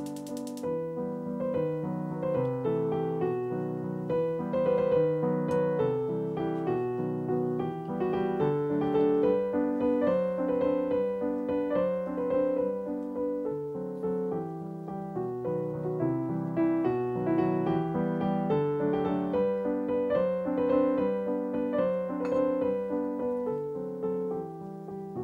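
Background piano music, a gentle melody over chords. It opens with a rapid run of clicks that ends about half a second in.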